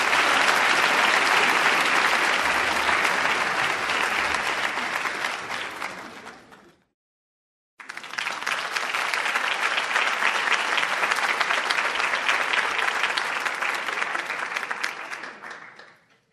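Audience applause: a dense mass of clapping that fades out about seven seconds in. After a second of silence a second round of applause starts suddenly, then fades out again near the end.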